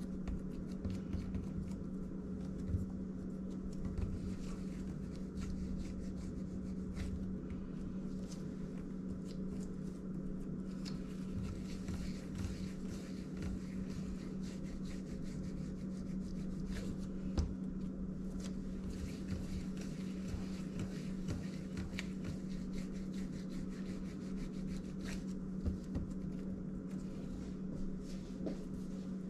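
Hands rolling and shaping soft bread dough into rolls on a silicone baking mat: quiet rubbing with light taps. A steady low hum runs underneath.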